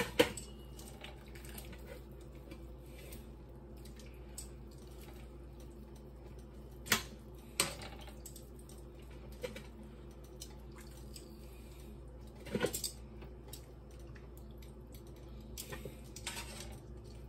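Metal kitchen tongs clinking against a pan and a stainless steel colander as pieces of boiled pork are lifted out of the cooking water. There are a handful of sharp clinks spread far apart, the loudest just after the start.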